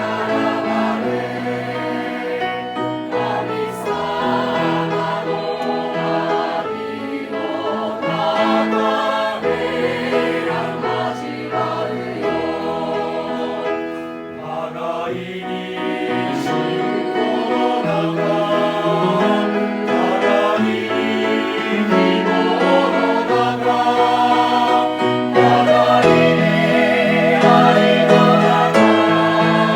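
A church choir singing a hymn in several parts, growing gradually louder toward the end.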